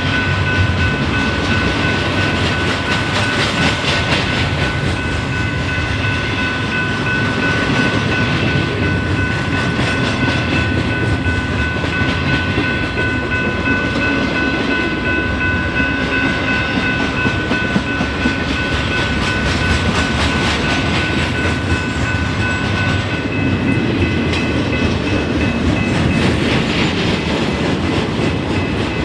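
Freight train rolling past at close range, its wheels clattering steadily over the rails. Several steady high-pitched tones ring on over the rumble throughout.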